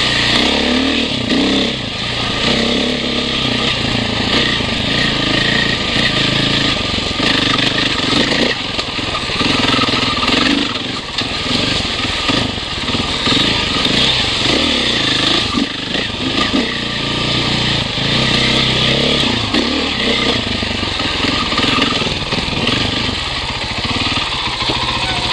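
KTM off-road dirt bike engine running under way, its pitch rising and falling as the throttle is opened and closed.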